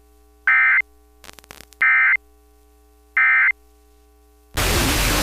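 Three short, loud bursts of Emergency Alert System digital data tones, a screechy warble about a second and a third apart: the end-of-message code that closes a weather radio alert. Near the end a steady hiss of radio static comes in.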